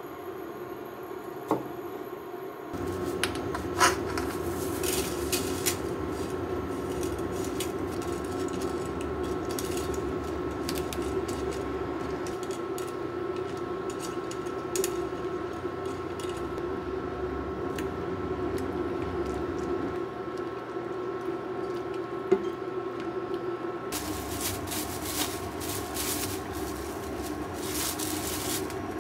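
A knife taps on a plastic cutting board, then a pot of spaghetti boils with a steady bubbling and hum, with clinks a few seconds in as the pasta is handled with tongs. Near the end, plastic wrap crinkles as bacon is unwrapped.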